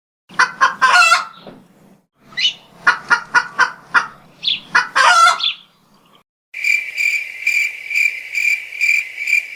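Chicken sound effect: a run of short clucks and squawks in two bursts. Then, about two-thirds of the way in, a high pulsing chirp starts and repeats about three times a second.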